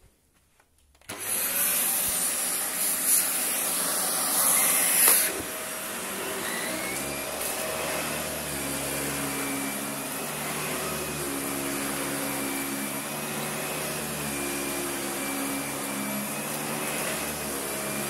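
Dyson upright vacuum cleaner coming on suddenly about a second in, with a loud high hiss of suction. After about five seconds it settles into a steadier motor hum with a thin whine as it is run over thick carpet, picking up grit.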